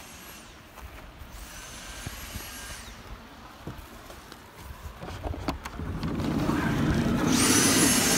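Small handheld vacuum cleaner: its motor whines up to speed about a second in and stops a couple of seconds later, then starts again about seven seconds in and runs loud and steady while the van's interior is cleaned.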